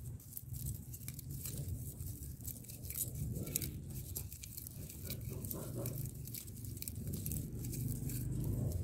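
Dry banana-stem fibre strips being rubbed and bent back and forth between the hands to soften them, giving a constant run of small dry crackles and rustles over a low steady rumble.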